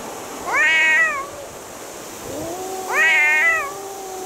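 Orange tabby cats yowling in a fight standoff. Two loud wavering wails rise and then fall, one about half a second in and one about three seconds in. A low, drawn-out yowl starts between them and runs on under the second.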